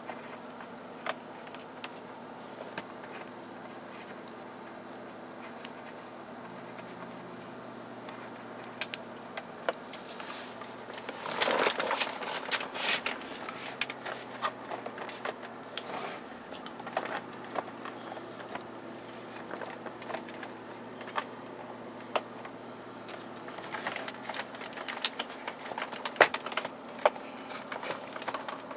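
Scattered clicks, taps and scrapes of a screwdriver and hands working on the plastic steering-column trim, with a louder, busier stretch of scraping and clicking about a third of the way in and more clicks near the end, over a steady low hum.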